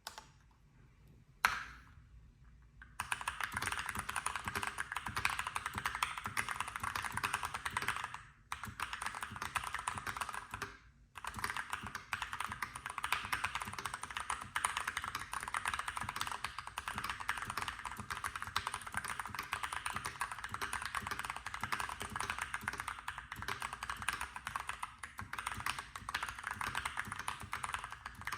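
Keychron V1 mechanical keyboard with Gateron Brown tactile switches being typed on fast and continuously, a dense stream of keystroke clacks. A single click comes first, the typing starts about three seconds in, and it breaks off briefly twice.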